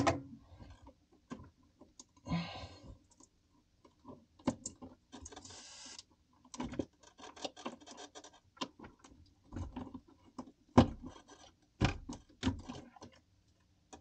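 Hands freeing a foil-taped defrost sensor from the evaporator tubing inside a freezer: irregular clicks, scrapes and rustling, with short rasping stretches about two seconds and five seconds in.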